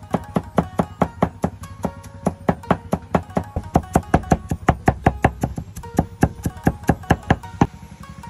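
Background music with a rapid series of sharp knocks, about four a second, that stop near the end.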